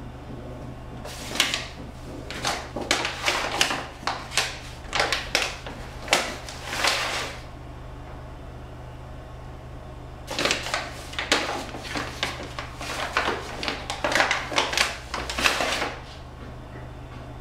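Flour being scooped from a paper flour bag with a measuring cup and tipped into a mixing bowl: quick rustling and scraping strokes in two runs of several seconds each.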